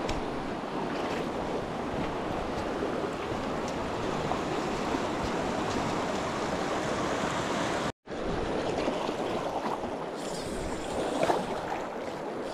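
River water rushing steadily over rocks and through shallow riffles. The sound cuts out for an instant about eight seconds in.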